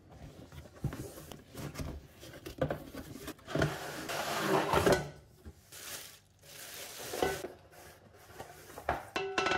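A cardboard box being opened and a wok in plastic wrap taken out: rustling cardboard and crinkling plastic, with a few light knocks. The rustling is loudest about four seconds in.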